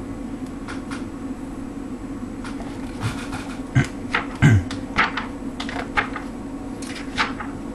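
Pages of a comic book volume being turned and handled: scattered short paper rustles and soft knocks, mostly in the second half, over a steady low hum.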